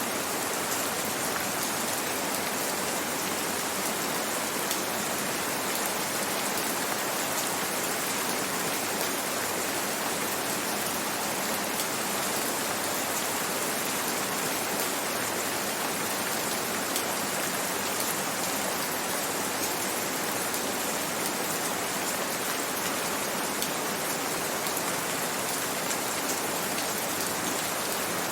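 Steady rain falling, an even hiss of many drops with faint individual drop ticks.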